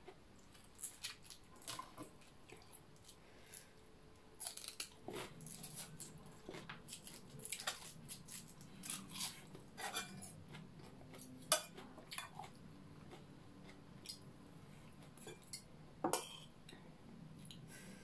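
Metal fork and spoon clinking and scraping on a porcelain plate of rice during a meal, as scattered sharp clicks. The loudest clicks come about eleven and sixteen seconds in. A faint low hum comes in about five seconds in.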